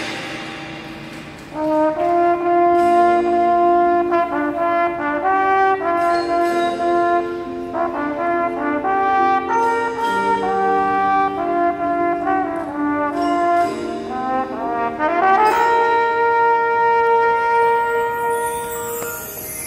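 High school marching band's winds (saxophones, trumpets and sousaphones) playing a slow passage of sustained chords. A chord dies away at the start, the band comes back in about a second and a half in, and it swells into a long loud held chord about fifteen seconds in that fades near the end.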